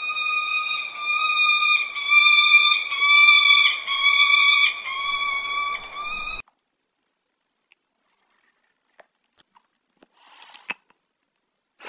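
Hawk calling: a run of high, piercing notes held on one near-steady pitch for about six seconds, then it stops abruptly.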